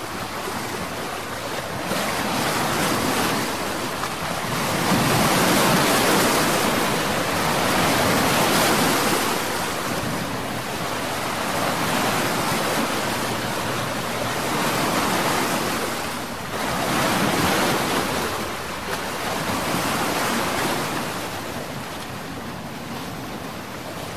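Rushing of sea water and wind, heard aboard a boat on open water. The noise swells and eases every few seconds.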